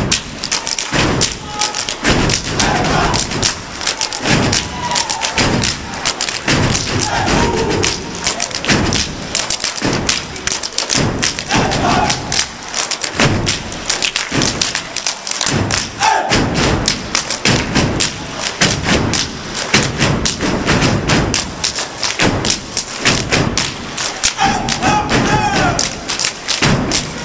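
Step team stomping and clapping in unison on a wooden stage: a fast, steady rhythm of sharp foot stomps and hand claps, with short shouted calls now and then.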